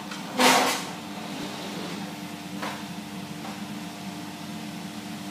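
Large MDF door panel set down on a workbench: a brief loud scuffing thump about half a second in. A steady low hum runs underneath, with a couple of light knocks later.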